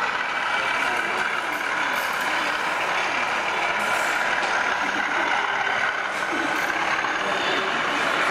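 Recorded diesel engine sound from a sound-fitted model Class 37 locomotive running steadily, a continuous engine hum with a steady whistle in it.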